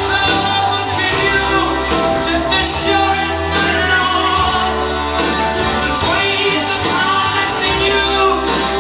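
A song with a singer over a steady beat and sustained bass, played loud as accompaniment to a stage movement piece.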